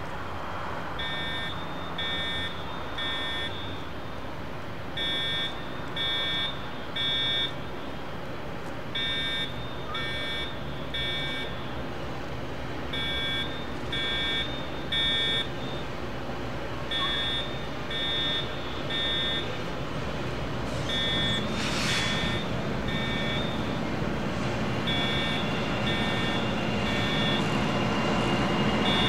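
A fire alarm sounding three high beeps, then a pause, repeating about every four seconds. Under it runs the low rumble of approaching GE diesel freight locomotives, which grows louder near the end.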